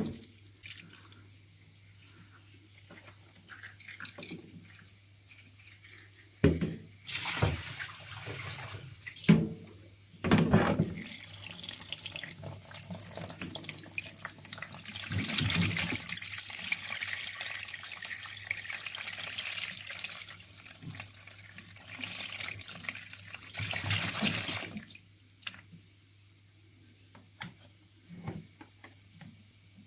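Water running and splashing: a few splashes, then a steady stream from about ten seconds in that cuts off suddenly near the end, as water is let out of a washing machine's drain hose.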